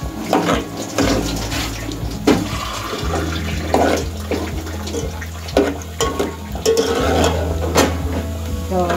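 Sliced onions sizzling in hot oil in an aluminium pot, with a steel ladle scraping and knocking against the pot at each stirring stroke.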